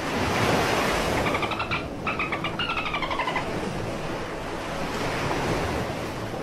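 Beluga whale giving rapid pulsed, squeaky calls that fall in pitch, in two bursts from about one to three and a half seconds in. Water sloshing and splashing is heard between the calls.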